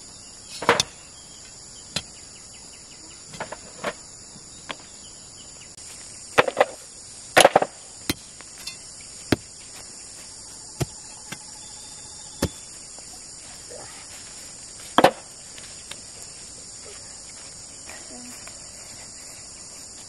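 Steady high-pitched insect chorus with about a dozen sharp, unevenly spaced knocks over it, the loudest about seven seconds in and again near fifteen seconds.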